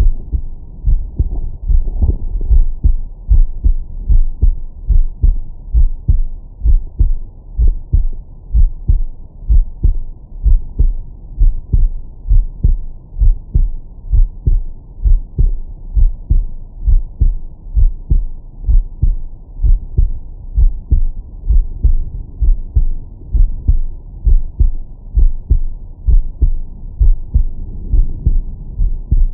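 A man's heartbeat picked up through a Stemoscope digital stethoscope on the chest, filtered to its 20–1000 Hz setting. Steady, even pairs of deep, bassy lub-dub thumps.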